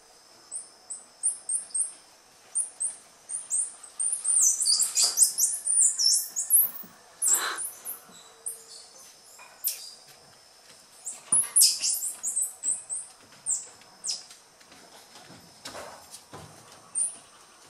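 A troop of squirrel monkeys giving many short, very high-pitched peeps and chirps, coming thickest about four to seven seconds in and again near twelve seconds.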